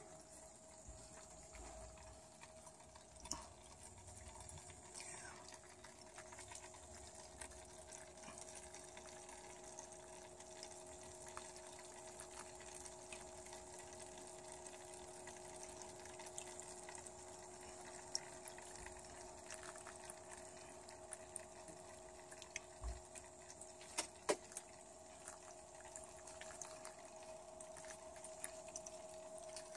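Small solar-powered water pump running with a faint steady hum while water trickles and drips through the hydroponic tubing into the cups. A few light ticks, with a sharper knock about two-thirds of the way through.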